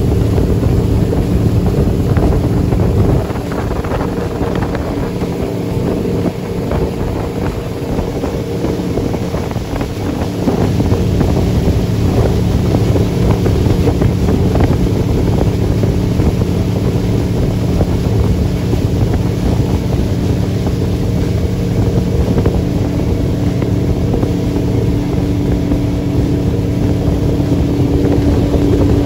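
Motorboat engine running at a steady cruising speed, with wind on the microphone.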